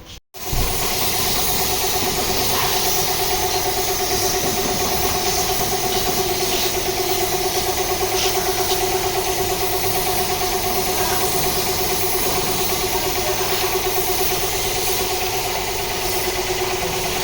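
A motor running steadily after a cut: a constant hum with an even hiss over it.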